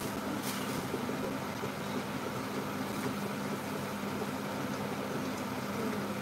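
A steady machine hum with a low, unchanging drone.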